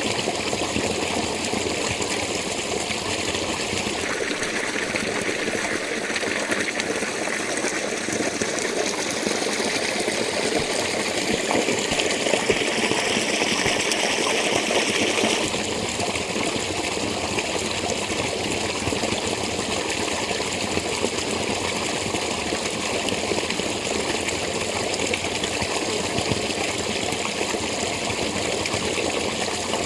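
Spring water flowing and splashing steadily from a holy spring. From about 4 s to 15 s the sound grows brighter and a little louder, then settles back.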